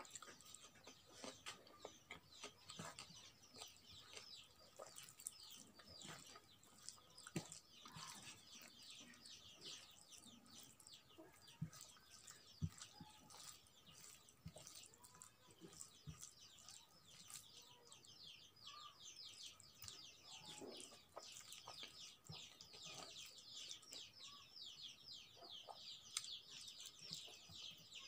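Faint, rapid wet clicking of eating by hand: fingers squishing and mixing rice with curry on a plate, and chewing. The clicking grows denser near the end.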